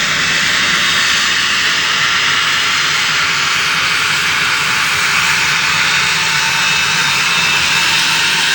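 Cessna Citation Excel business jet's Pratt & Whitney Canada PW545 turbofans running steadily on the ground: a loud, even jet hiss and whine.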